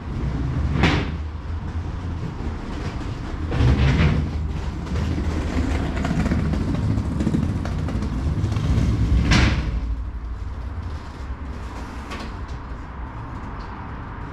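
Low rumble of a train on nearby tracks, with three brief louder rushes of clatter about a second, four and nine seconds in, easing off toward the end.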